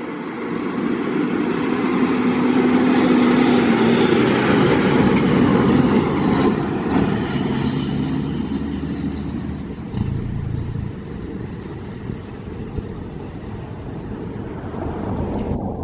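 A motor vehicle passing by, growing louder to a peak a few seconds in and then fading away.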